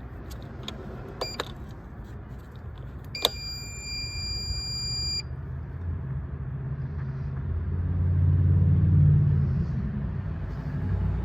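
A couple of sharp clicks, then a portable jump starter pack gives one steady electronic beep lasting about two seconds; the pack turns out to be dead. After that a low rumble swells and fades.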